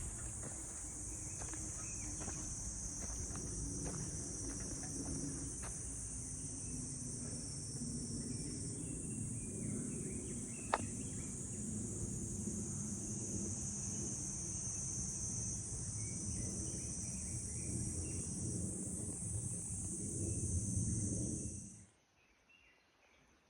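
Steady high-pitched insect chorus, with rustling, scraping and scattered knocks beneath it and one sharp click about halfway through; everything cuts off suddenly near the end.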